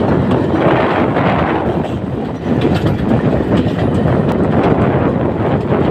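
Passenger train running on the rails: a loud, steady clatter of wheels and carriages.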